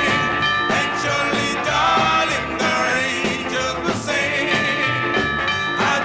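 1950s doo-wop record playing from a 45 rpm single: a vocal group singing in harmony over a steady beat.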